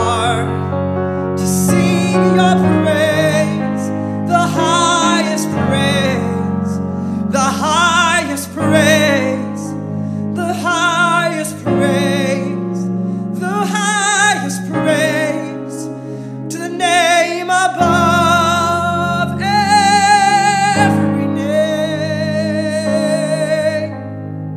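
A man singing a slow worship chorus with strong vibrato, accompanying himself with sustained piano chords. He holds long notes in the latter half.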